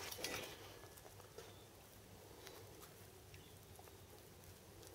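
Mostly near silence: a rough cast-aluminium part is handled with gloved hands, with a few faint knocks and scrapes in the first half second and only scattered light ticks after.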